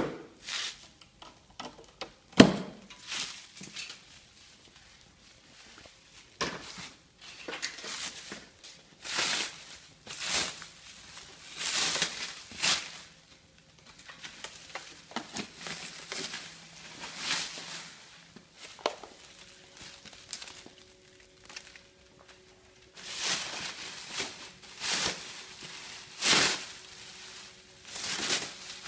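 Plastic stretch wrap and bubble wrap being pulled off and crinkled in repeated rustling bursts, with two sharp snaps in the first few seconds as the black plastic packing straps are cut.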